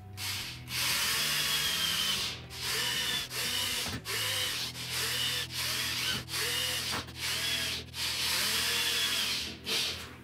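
Corded electric drill boring into pine frame rails in a string of short bursts, the motor's whine rising and falling with each trigger squeeze.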